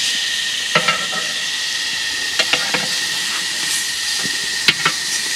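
Food frying in a pan with a steady sizzle, broken by several short sharp clicks or taps.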